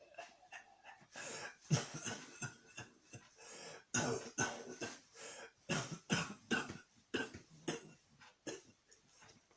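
A man coughing in a fit brought on by a cold: quick runs of coughs, the densest from about four to seven and a half seconds in, thinning out near the end.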